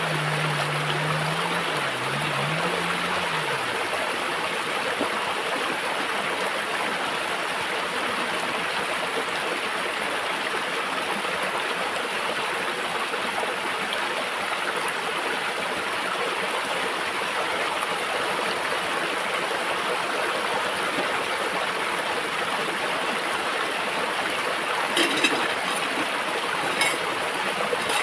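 Shallow stream running over rocks, a steady rushing babble. A low wavering hum sounds for the first few seconds, and a few light knocks come near the end.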